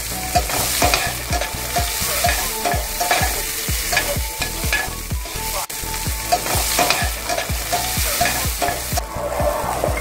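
Diced red bell pepper and garlic sizzling in hot oil in a stainless steel frying pan, with a regular low thud about three times a second underneath; the sizzle thins near the end.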